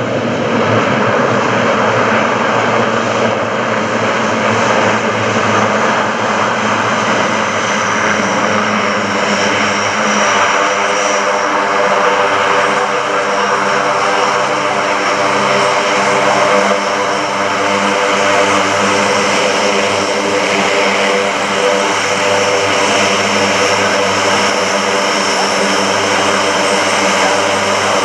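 Lockheed C-130J-30 Hercules taxiing on the ground, its four Rolls-Royce AE 2100 turboprop engines and six-bladed propellers running in a loud, steady drone and whine.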